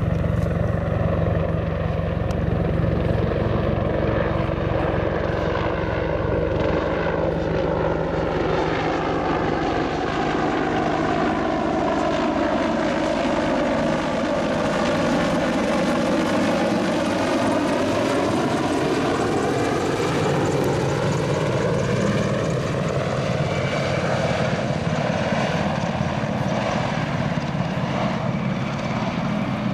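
AH-64 Apache twin-turboshaft helicopter flying low past on its landing approach: steady rotor and turbine noise. Its tone sweeps down and back up as it passes closest around the middle.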